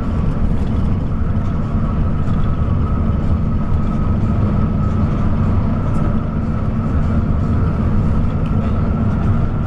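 Bus travelling at steady speed on a highway: constant engine and road noise with a faint steady whine over it.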